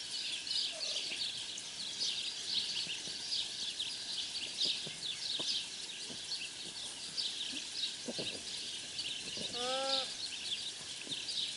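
A dense chorus of small birds chirping without a break. About ten seconds in, one short hum that rises and falls.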